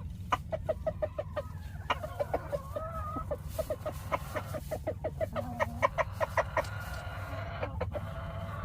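Chickens clucking in quick runs of short calls, several a second, with a few longer drawn-out calls mixed in. A steady low hum runs underneath.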